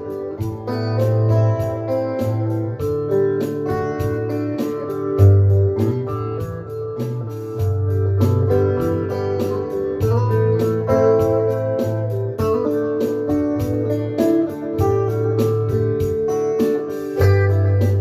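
Instrumental guitar music: a Taylor electric guitar plays an intro over a steady low bass line that changes note every second or two, with a quick, light, even ticking beat.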